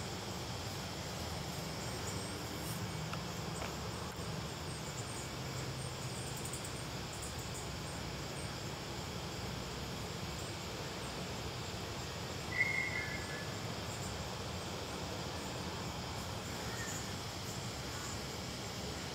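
Steady background hiss of outdoor ambience, broken by one short, high chirp and a fainter lower one about twelve and a half seconds in.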